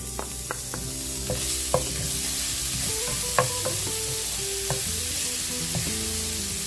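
Minced garlic sizzling in hot oil in a nonstick wok as it is sautéed, stirred with a wooden spatula that gives a few sharp taps against the pan.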